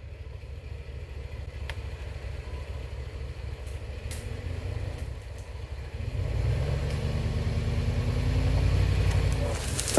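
A vehicle engine running under load, growing louder about six seconds in with a slight rise in pitch, consistent with a vehicle pulling on a rope to drag a tree over.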